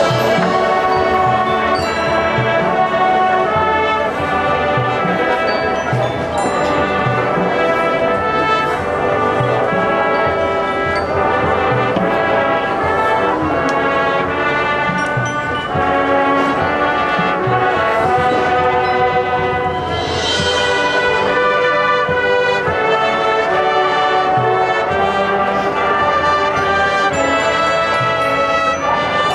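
High school marching band playing: full brass chords carrying a sustained melody over a steady beat of drums, with a bright crash at the start and another about twenty seconds in.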